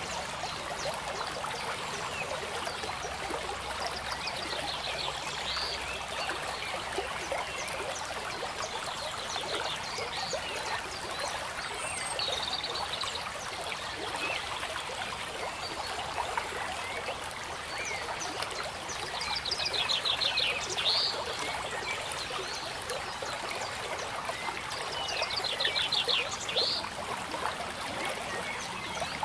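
Steady trickling of a flowing stream. A pulsed animal call rises above it several times, some seconds apart.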